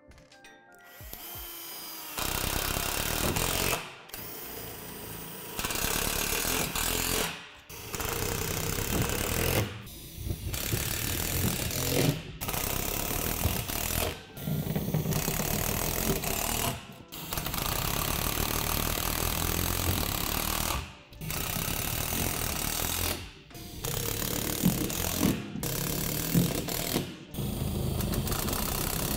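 Cordless driver running in short runs of a second or two, about a dozen times with brief pauses between, as it drives self-tapping screws through the plastic deck into the metal poles beneath.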